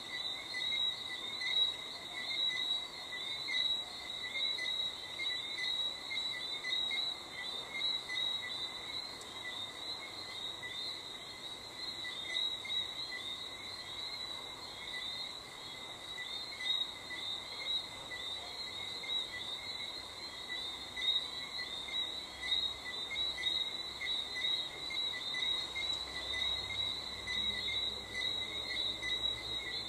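A steady night chorus of crickets trilling, with frogs calling. A faint low rumble of distant thunder comes in near the end.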